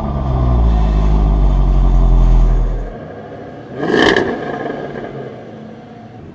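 Jaguar XFR-S's supercharged 5.0-litre V8 idling just after start-up, first heard from inside the cabin as a steady low hum. After a cut to the exhausts, it gives one short rev blip about four seconds in and drops back to a quieter idle rumble.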